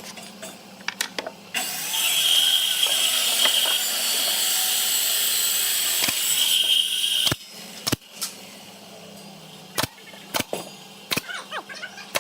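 A handheld power tool runs at a steady speed with a high whine for about five and a half seconds, then cuts off suddenly. A few sharp knocks and clicks of work on wood follow.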